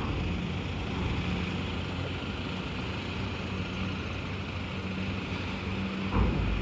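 Cars driving off a chain ferry's ramp over a steady low engine hum. About six seconds in comes a single heavy thump as a vehicle crosses the ramp.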